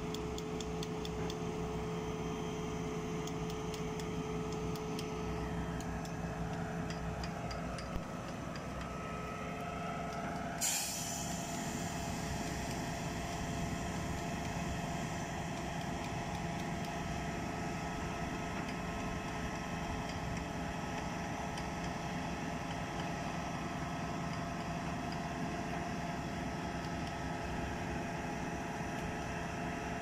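Putzmeister M 42-4 truck-mounted concrete pump running steadily, its engine and hydraulics droning with a whine while the boom is moved. A single sharp hiss comes about ten seconds in, and after it the whine settles to a steady lower pitch.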